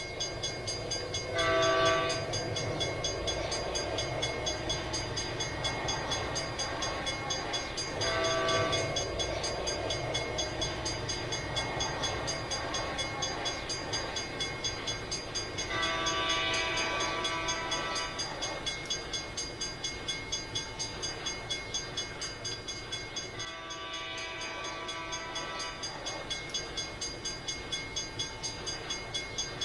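A multi-tone train horn sounds four times: two short blasts, then two longer ones. Underneath, a steady rolling rumble with an even clickety-clack rhythm runs as a goods train of hopper wagons passes.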